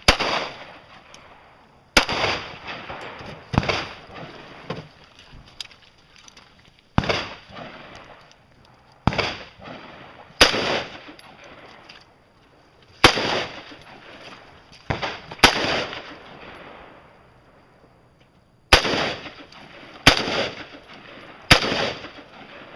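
A competitor's firearm firing about a dozen single shots during a timed practical-shooting course of fire. The shots come in irregular groups one to three seconds apart, and each crack rings on in a short echo.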